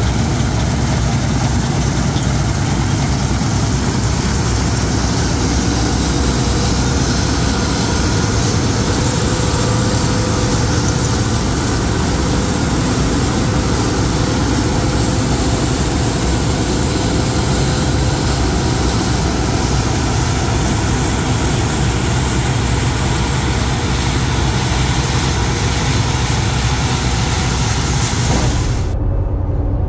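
Bizon Rekord combine harvester running steadily while harvesting, its engine and threshing machinery making a loud, even mechanical din. About a second before the end the higher part of the noise cuts out suddenly, leaving only a low rumble.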